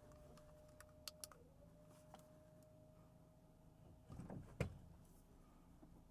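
Near silence with a faint steady hum, a few light clicks in the first couple of seconds and a louder knock about four seconds in.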